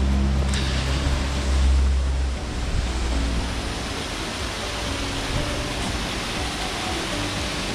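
Steady rush of falling water, an even hiss over the whole range, with a deep low rumble for the first two seconds or so.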